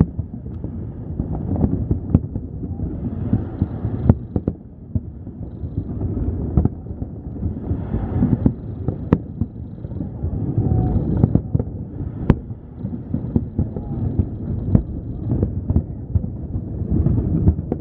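Fireworks display heard from a distance: a continuous low rumble of aerial shell bursts, with sharper bangs standing out every second or two.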